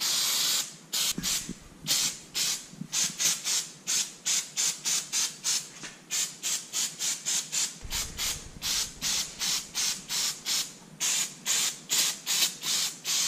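Aerosol can of brake cleaner spraying onto a brake caliper: one longer spray at the start, then many quick short bursts, about three a second.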